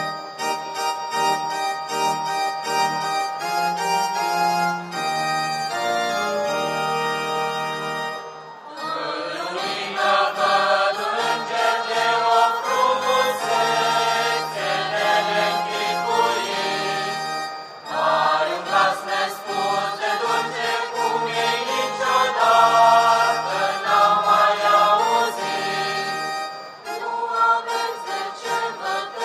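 Mixed choir singing a traditional Romanian Christian song over an organ-toned keyboard accompaniment. The organ sound holds steady notes alone at first, and the voices come in fuller about nine seconds in, with a brief break a little past halfway.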